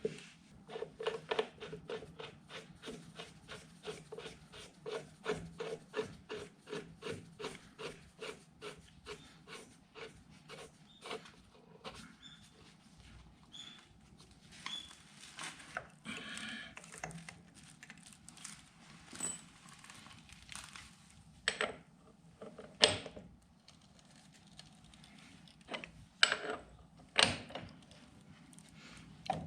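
A fast run of short, evenly spaced taps, about three a second, for roughly twelve seconds, then a few scattered louder knocks.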